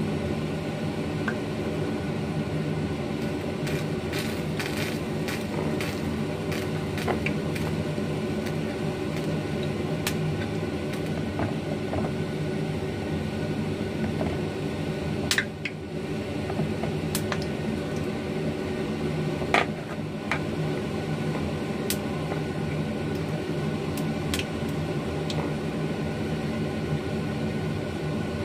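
A steady mechanical hum, with scattered light clicks and taps from chopsticks and fingers against a plate as banana pieces are rolled in breadcrumbs. The sharpest taps come about 15 and 20 seconds in.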